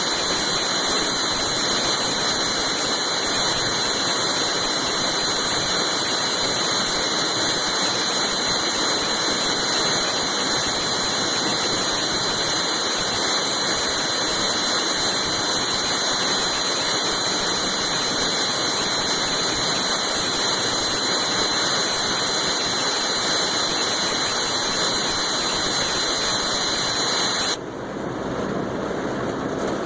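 A steady, loud hiss with a thin high whine running through it. It cuts off suddenly near the end and gives way to a quieter, lower sound.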